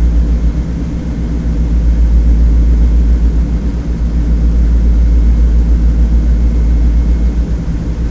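Avro Shackleton's Rolls-Royce Griffon V12 piston engines with contra-rotating propellers running on a ground run: a loud, deep, steady drone that swells and eases slightly.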